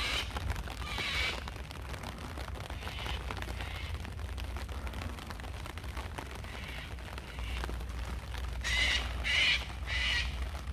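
Steady rain and wind noise with a low rumble on the microphone. Near the end comes a run of four short, evenly spaced calls, likely a bird.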